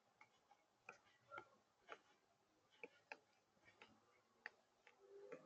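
Near silence broken by faint, irregular light clicks and taps, roughly two a second, the sharpest about four and a half seconds in.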